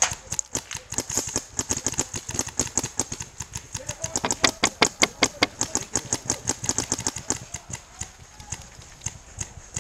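Paintball markers firing in rapid, irregular volleys of sharp pops, thickest about halfway through.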